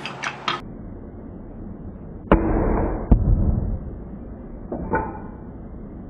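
Pen press forcing the bolt-action pen kit's metal parts together: a few light clicks, then two sharp metal cracks under a second apart with a dull rumble between them, and a softer knock near the end, all muffled. This is the threaded jam piece popping all the way into the brass barrel.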